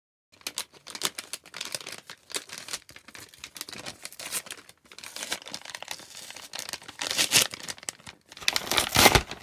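A paper mailing bag crinkled and torn open by hand: a dense run of crackles, with louder rips about seven and nine seconds in.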